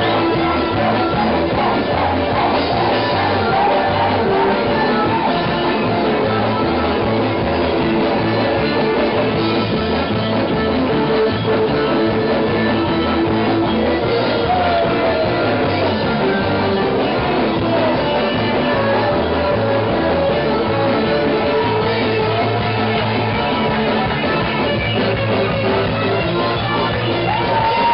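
A live psychobilly-jazz-punk band playing loud rock music with a steady beat and a gliding melody line.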